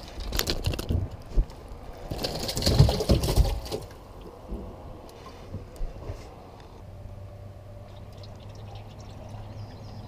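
Water splashing and sloshing in a bass boat's livewell as a caught bass is put in. It is loudest from about two to three and a half seconds in, and a steady low hum comes in after about seven seconds.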